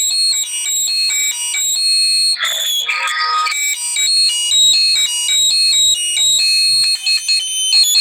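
Portable voice amplifier feeding back: loud, high-pitched squealing tones that jump abruptly from one pitch to another in short, choppy bits.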